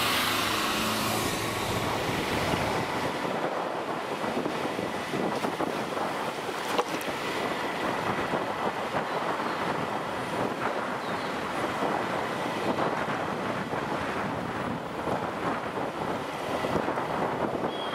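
Wind buffeting the microphone of a moving motorbike, mixed with road and engine noise, with one sharp click about seven seconds in.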